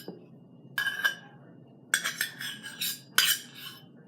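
A utensil scraping and clinking against a measuring cup while scooping out the last of the thick glue, in about three short strokes roughly a second apart.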